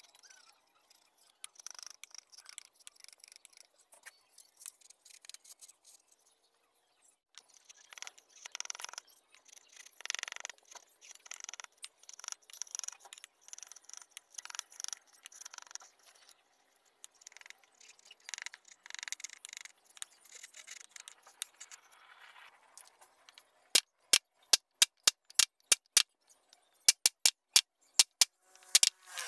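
A steel flat chisel pushed by hand, paring and scraping wood in irregular strokes. Near the end a quick run of sharp, loud clicks takes over.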